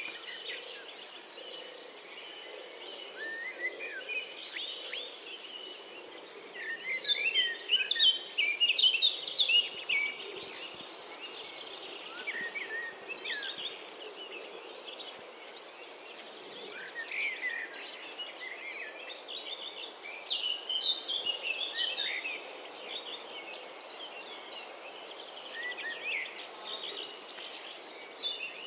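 European robin singing: bursts of varied high, thin warbling notes, loudest and densest a few seconds in, with a steady high thin tone running underneath.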